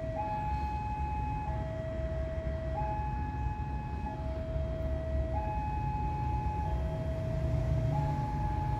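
Railway level-crossing warning alarm sounding alternating high and low tones, each held a little over a second. It signals an approaching train. Under it is a low rumble that grows slightly louder near the end.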